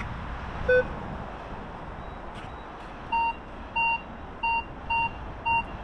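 Minelab Vanquish 540 metal detector sounding off on a target: one short low beep about a second in, then from about three seconds in five short higher beeps at an even pace, one every half-second or so. The signal says the target is still in the hole.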